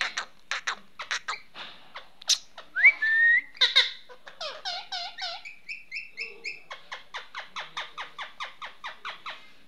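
Indian ringneck parakeet chattering in a quick series of short calls, with a short rising whistle about three seconds in and a run of repeated chirps after it. In the last few seconds the calls settle into a fast, even train of about five a second.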